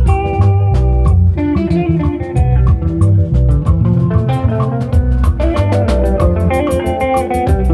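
Instrumental passage of a song: plucked guitar lines over bass guitar and a drum kit keeping a steady beat, with no singing.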